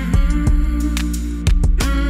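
Background music: plucked string notes over a held low bass, with a few percussive hits.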